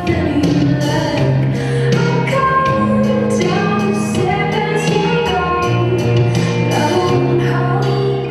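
Recorded song with a woman singing over a steady beat.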